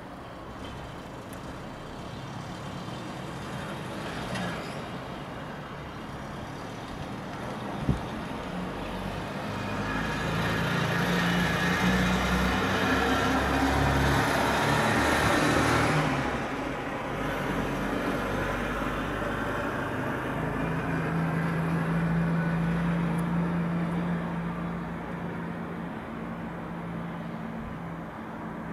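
City road traffic: motor vehicles passing, with a louder swell of passing noise about a third of the way in, then a steady engine hum that fades near the end.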